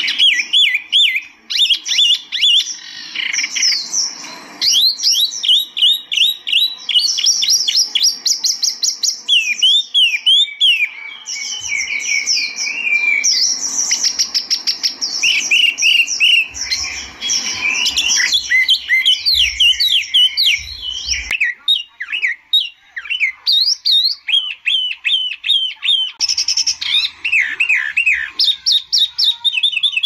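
Songbird of the kind kept as 'tieu mi' or 'wambi mini' (mini hwamei) singing non-stop: a loud, fast, varied song of high whistles, trills and quickly repeated sweeping notes.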